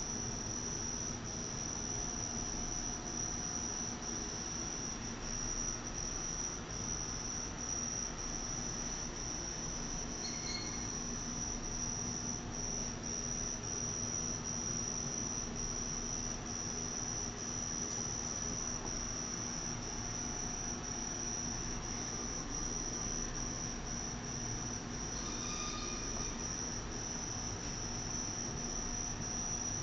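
Steady high-pitched insect trill with short, evenly spaced breaks, over a faint low hum.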